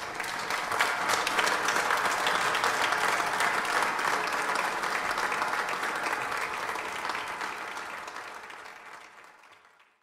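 Audience applauding, building quickly at the start and fading out toward the end.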